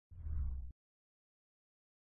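A short, deep whoosh transition sound effect lasting about two-thirds of a second, mostly low rumble.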